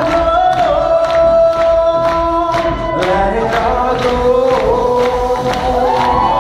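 Live vocal music: a singer on a microphone over sustained, choir-like vocal harmony, long notes held and sliding between pitches, with a steady beat of sharp hits about twice a second.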